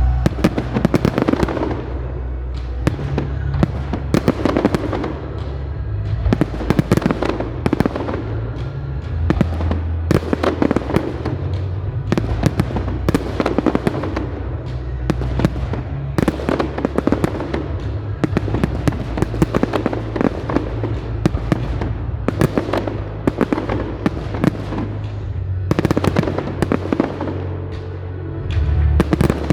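Fireworks display: many bangs and crackling bursts in quick succession, over loud music with a heavy bass line.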